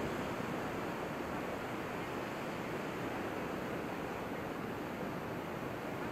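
Steady, even wash of surf on a sandy beach.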